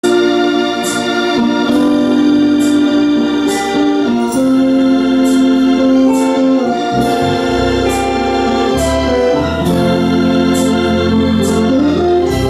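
Live church band music with an electric guitar: long held organ-like chords that change every second or two over a light tick about once a second, with a bass line coming in about seven seconds in.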